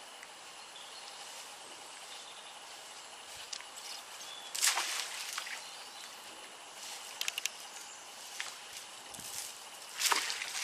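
Outdoor background hiss with a faint steady high whine, broken by two brief louder rushes of noise, about four and a half and ten seconds in, and a few small clicks between them.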